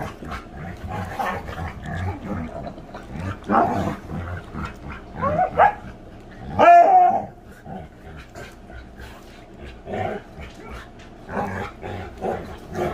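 A dog making a series of vocal sounds that rise and fall in pitch, with low rumbling between them. The loudest and longest call comes about seven seconds in.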